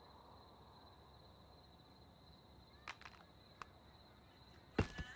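Crickets chirping: a faint steady trill with a fast pulsing chirp higher up. A couple of soft clicks come about three seconds in, and a louder knock near the end.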